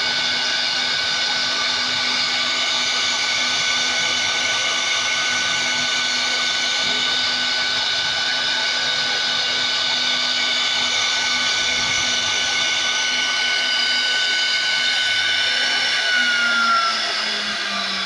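CNC wood router's 4.5 kW spindle motor running with a steady high whine as its bit cuts into a wooden relief panel. About sixteen seconds in, the whine starts falling in pitch and fading as the spindle winds down.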